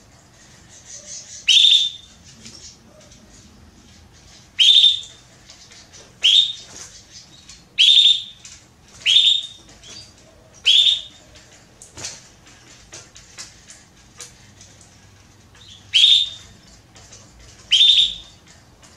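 Female domestic canary (Belgian canary) calling repeatedly: about eight loud, short, high calls at uneven intervals, with faint chirps between them and a lull of several seconds before the last two. This is the call of a hen in breeding condition asking for a male.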